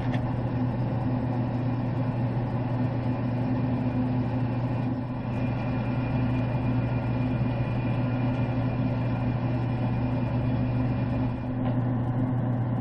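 Traeger pellet grill running just after start-up on its smoke setting: its fan motor gives a steady hum.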